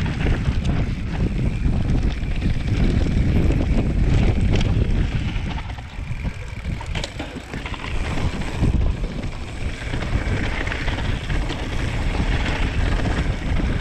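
Wind buffeting the microphone as a mountain bike rides a trail at speed, with knocks and rattles from the bike over bumps. The wind eases for a moment about six seconds in.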